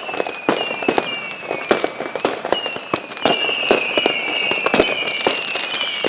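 Fireworks rockets howling: several high whistles, each falling slowly in pitch and overlapping one another, among frequent sharp cracks and bangs.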